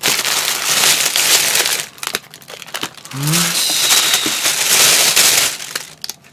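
Thin plastic carrier bag rustling and crinkling as hands rummage inside it, in two long stretches of about two seconds each with a short break between.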